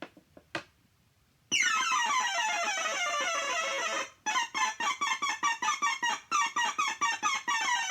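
Loud electronic synthesizer sound: a few clicks, then about a second and a half in a fast cascade of falling notes. After a brief break it returns as rapid, stuttering repeated notes.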